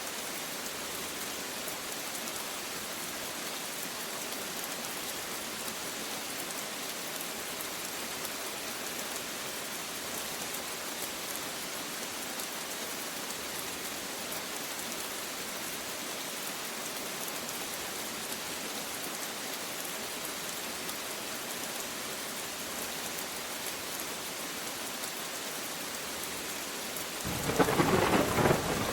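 Steady rain falling, with a sudden loud burst of thunder near the end.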